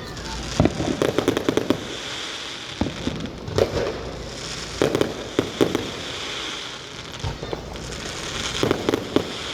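Fireworks going off: clusters of sharp bangs and crackling reports every second or two, with a hiss between the bursts.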